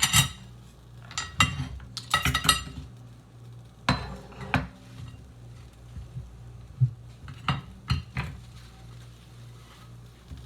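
Dishes, pots and metal utensils clinking and knocking as food is plated in a kitchen: sharp ringing clinks at irregular intervals, mostly in the first few seconds and again about eight seconds in, over a steady low hum.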